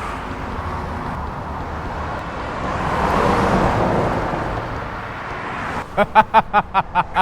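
Road traffic: a vehicle passing by, its noise swelling to the loudest point about three and a half seconds in and then fading. A voice starts near the end.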